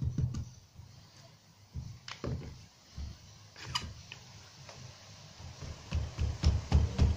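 Scattered clicks and knocks as a one-handed bar clamp is worked and handled on a timber door frame, with a cluster of heavier low knocks near the end.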